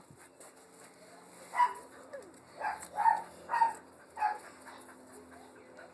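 A dog giving about five short barks in a quick run, the loudest in the middle.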